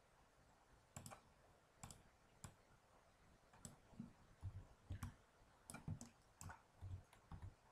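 Faint, irregular clicking of a computer keyboard and mouse: about a dozen separate key presses and button clicks, some with a soft low thud.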